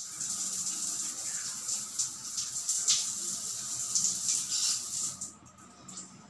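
Water running in a tiled bathroom, a steady hiss that stops about five seconds in.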